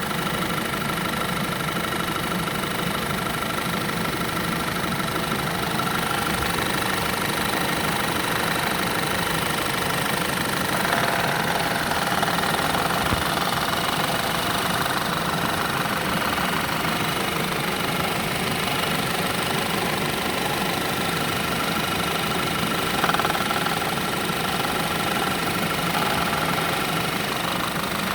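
Audi/VW 2.0 TFSI turbocharged four-cylinder engine running steadily at idle with a fast, repetitive knock that the owner cannot explain.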